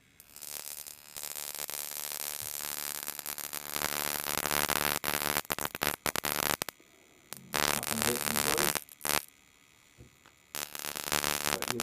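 High-voltage spark of about 13,000 to 15,000 volts from a homemade car-ignition-coil generator, arcing between a screwdriver tip and a flat metal plate: a loud crackling buzz. It runs for about six and a half seconds, cuts out, then comes back twice in shorter spells of a second or two.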